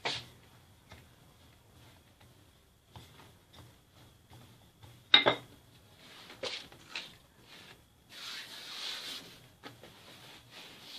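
Handling croissant dough on a countertop: a wooden rolling pin knocking on the counter, loudest about five seconds in, with a few lighter knocks after, then about a second and a half of dough rubbing and sliding over the floured surface as it is lifted and turned.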